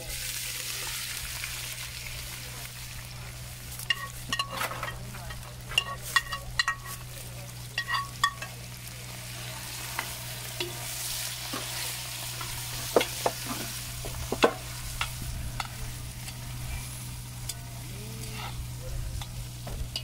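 Fish pieces deep-frying in a pot of hot oil, sizzling steadily, while a metal utensil stirs them. There is a run of ringing clinks against the pot a few seconds in, and a few sharper knocks later.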